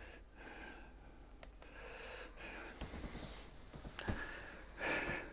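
Soft breathing and small mouth clicks from a man, picked up close by a clip-on lapel microphone, with a louder intake of breath near the end.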